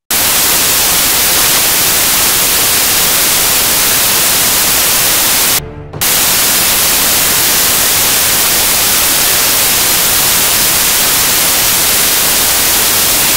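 Loud, steady hiss of white-noise static covering the audio, with a brief drop about six seconds in.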